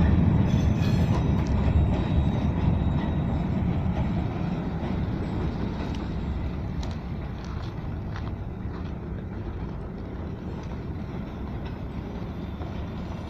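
Freight train cars rolling over the rails, a steady low rumble that slowly fades as the train pulls away.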